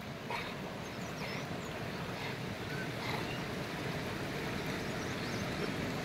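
Shallow river flowing over rocks: a steady rush of water.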